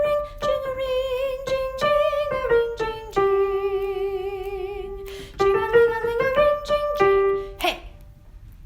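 A soprano voice singing the final phrase of a choral part over piano, holding one long note with vibrato in the middle; the music stops near the end.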